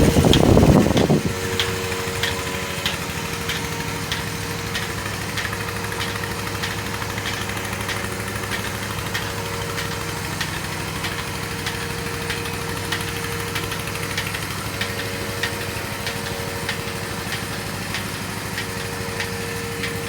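Bucket milking machine running steadily during milking: the vacuum pump motor hums, and the pulsator ticks lightly about twice a second. A brief louder noise comes in the first second.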